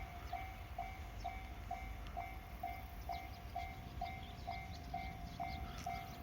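Japanese level-crossing warning bell: an electronic ding repeating a little over twice a second, warning that a train is approaching. A low rumble runs underneath.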